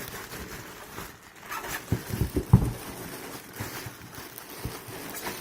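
Packaging being handled and unwrapped, with rustling and several irregular knocks, the loudest about two and a half seconds in.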